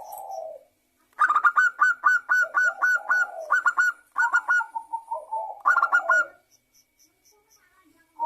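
Zebra dove (local perkutut) singing: a fast run of short, clipped notes for about three seconds, then a lower rolling coo, then a second, shorter run of notes.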